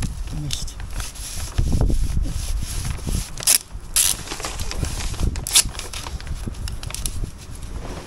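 Polythene damp-proof membrane rustling and crinkling as it is handled on the floor, with a few sharper crackles around the middle, over a low rumble.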